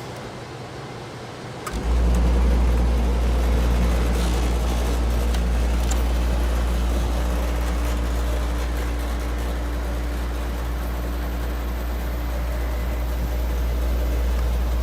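1990s Hampton Bay window air conditioner on low fan, its fan motor starting up about two seconds in and then running with a loud, steady low drone.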